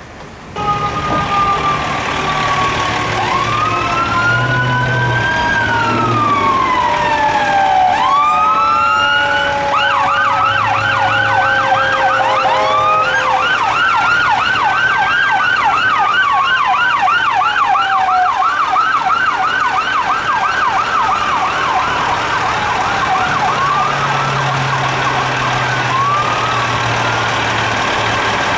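Ambulance's electronic siren, alternating between a slow rising-and-falling wail and a fast yelp. Over the first several seconds, steady tones also slide slowly down in pitch.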